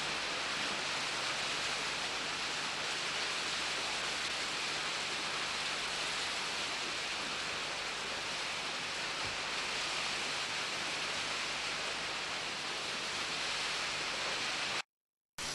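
A steady, even hiss, with a faint low hum beneath it, broken near the end by a half-second dropout to silence.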